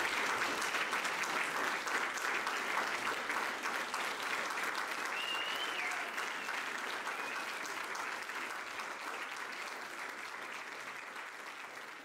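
Theatre audience applauding, gradually dying down, with a brief high whistle from the crowd a little past halfway.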